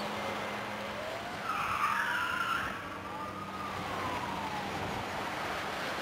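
Small waves washing on a sandy beach, with a motor's whine rising in pitch for a couple of seconds and then falling away, and a brief hiss about two seconds in.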